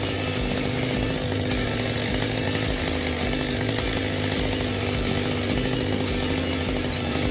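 Chainsaw running steadily at a constant pitch.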